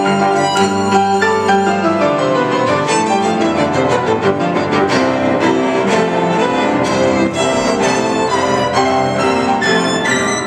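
Piano trio playing classical chamber music live: violin and cello bowing over piano.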